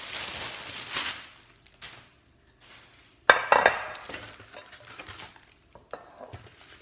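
Plastic wrapping crinkling, then about three seconds in a few sharp glass-and-metal clinks and rattles as the steamer's glass food container is handled, followed by lighter knocks.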